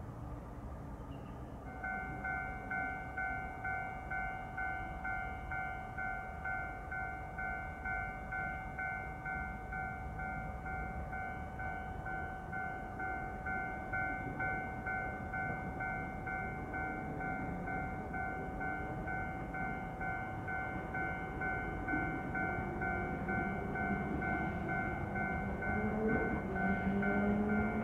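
Level-crossing warning bell ringing, an even repeating ding that starts about two seconds in and keeps going. Over the last few seconds an approaching Iyo Railway 3000 series electric train grows louder, its motor and running noise rising in pitch.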